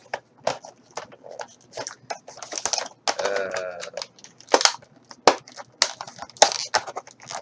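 Clear plastic blister packaging crackling and crinkling as hands peel its cardboard backing away: an irregular run of sharp crackles and snaps.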